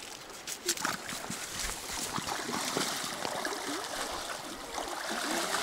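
A person wading through a shallow, rocky river, the water splashing around the legs with each step, over the steady rush of the current.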